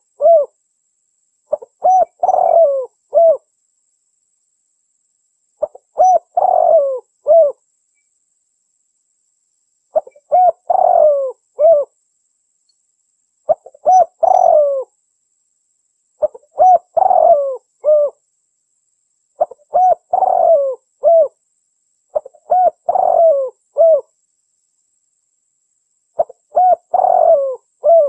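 Spotted dove (tekukur) lure call: a cooing phrase of short notes run into longer coos, repeated about eight times at intervals of three to four seconds, with silence between phrases.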